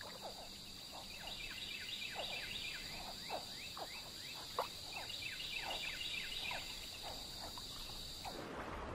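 Swamp chorus of insects and frogs: a steady high insect trill with many short, falling chirps repeating over it. It cuts off suddenly near the end.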